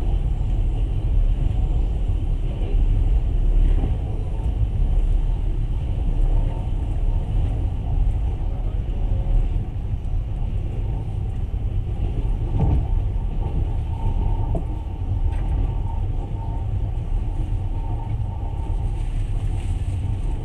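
Steady low rumble of a passenger train running along the track, heard from inside the carriage, with one brief louder knock about two-thirds of the way through.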